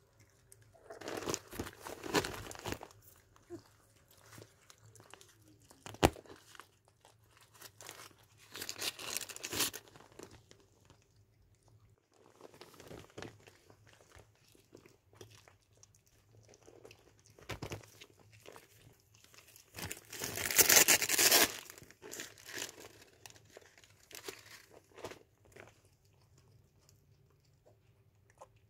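Mother cat chewing and tearing at her newborn kitten's remains, moist crunching in separate bouts, the loudest about twenty seconds in, with one sharp click about six seconds in.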